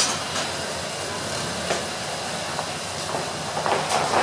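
Plow truck's engine running just after being started, and about three and a half seconds in, tire chains begin clanking against the ground as the truck starts to roll.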